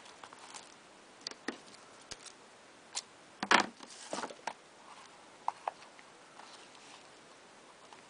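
Hands handling a handmade cardboard journal and tying its cord: scattered light taps, clicks and rustles, with a louder rustling knock about three and a half seconds in.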